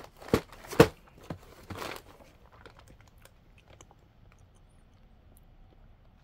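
Cardboard frozen-dessert box being handled and turned over in the hands: a few sharp taps and crinkles in the first two seconds, then only faint rustling.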